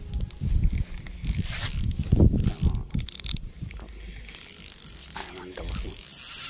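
Spinning reel being wound in on a fishing rod, its gears giving a thin high whine in two stretches, over wind buffeting and handling knocks on the microphone.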